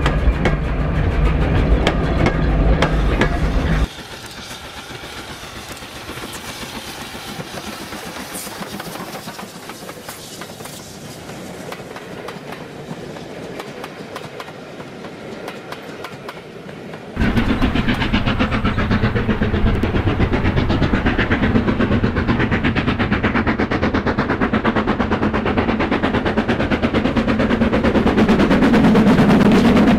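OO gauge model trains running on a layout: a fast rapid clicking of wheels over rail joints with motor hum as goods wagons and coaches pass close by. The sound drops away about four seconds in and comes back loud about seventeen seconds in as another train passes close.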